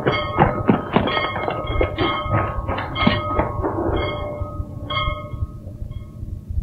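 A bell rung repeatedly, its strikes coming roughly once a second amid metallic clanking, with the ringing tones hanging on between strokes and dying away near the end.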